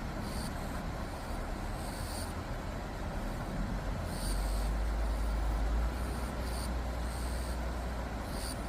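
Outdoor ambience: a steady low rumble and hiss, like distant road traffic, growing louder for a few seconds midway. Short high-pitched chirps recur irregularly every second or two.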